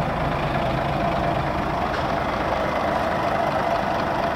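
Scania L94UB city bus's 9-litre five-cylinder diesel engine idling steadily, heard from close behind the bus.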